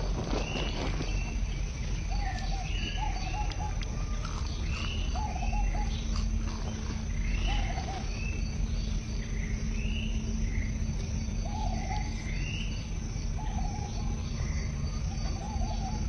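Repeated chirping calls from wild animals: short high arched notes alternating with lower warbling notes, about one every second, over a low steady hum.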